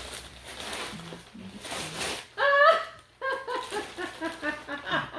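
Wrapping paper crinkling as a gift is unwrapped, then, about halfway through, women break into loud laughter that runs on in quick peals.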